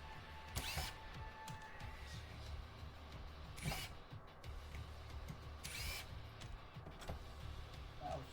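Three short whirs of a cordless power drill-driver running a screw out, a couple of seconds apart, over a steady low background.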